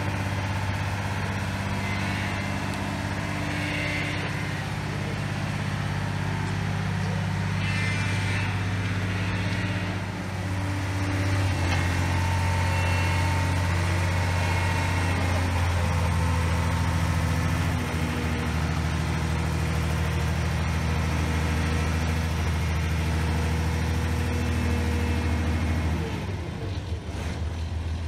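Boat travel lift's engine running steadily as the hoist drives along with a sailboat in its slings. The engine note shifts about ten seconds in and dips briefly near the end.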